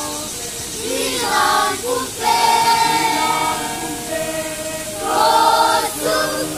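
Choir of children and adults singing together unaccompanied, in long held notes that change pitch every second or so.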